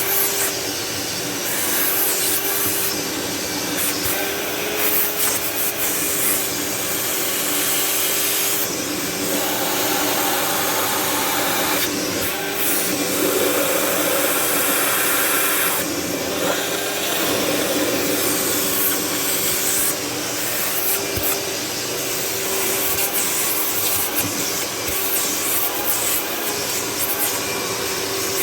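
Shop vac running continuously with a steady whine, its hiss swelling and fading every few seconds.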